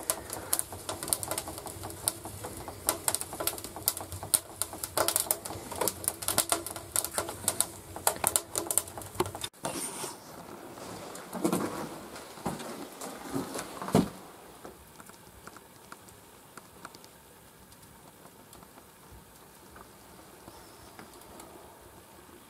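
Wood fire crackling with dense, irregular pops inside a small sheet-metal wood stove that has just been lit. About ten seconds in this breaks off, a few knocks follow, and then only faint room tone remains.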